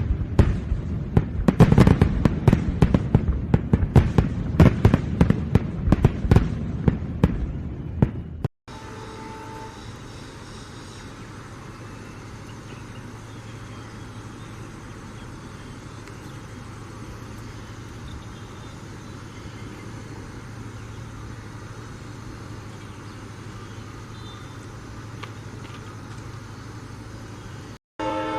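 A rapid, irregular string of firecracker bangs for about eight and a half seconds. It cuts off abruptly into a steady low hum with background noise.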